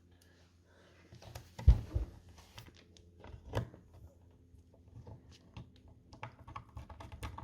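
Scattered small clicks and knocks as a 3.5-inch hard drive and its screws are handled in a metal drive bay, with one louder knock about 1.7 seconds in.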